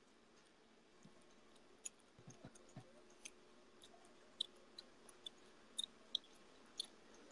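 Near silence: room tone with about a dozen faint, scattered clicks and ticks.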